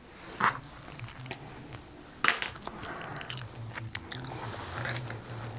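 Cotton quilt fabric being handled and folded on a cutting mat: soft rustling with scattered small clicks and crackles, one sharper click about two seconds in.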